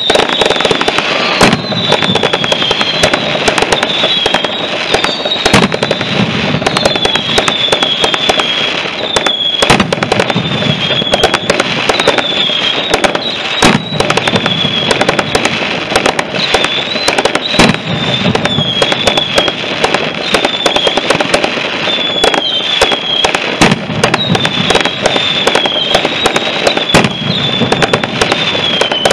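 A mascletà-style fireworks barrage: a dense, unbroken run of rapid firecracker bangs and crackling, with deeper booms about every four seconds.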